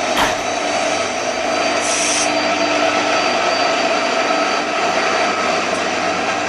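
Train running along the track: a steady rolling and rubbing noise of wheels on rails, with a brief sharp sound just after the start.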